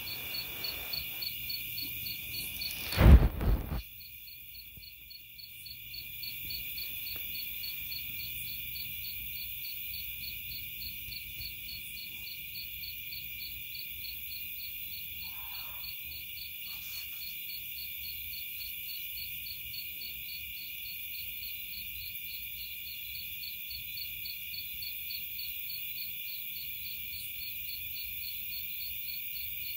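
A steady night chorus of insects such as crickets, with a high, fast, even pulsing chirp. A loud knock about three seconds in.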